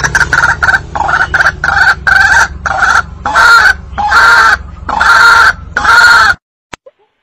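White-breasted waterhen (ruak-ruak) lure call: a loud run of repeated harsh notes, short and quick at first, then longer and slower, that stops abruptly about six seconds in.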